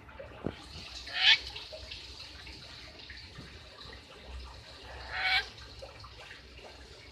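A lory parrot giving two loud, harsh calls, the first about a second in and the second about four seconds later.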